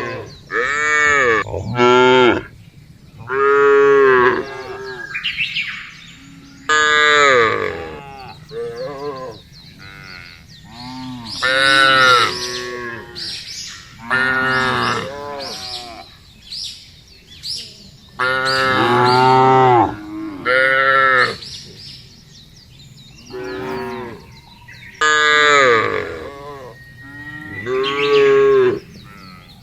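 Cows mooing again and again, a dozen or so calls one after another with short gaps. Each call rises and then falls in pitch.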